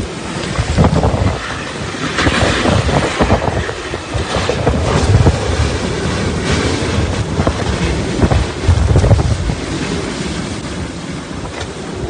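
Hurricane-force wind with heavy wind-driven rain, gusting in surges that buffet the microphone.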